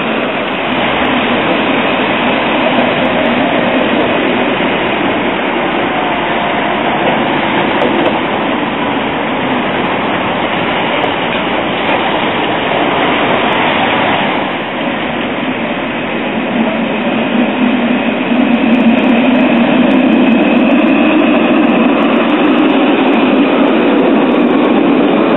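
Alstom Citadis low-floor electric tram running at a stop: a steady rumble of wheels on rail and traction equipment. It grows louder about two-thirds of the way through as a tram passes close by, with a faint rising whine near the end.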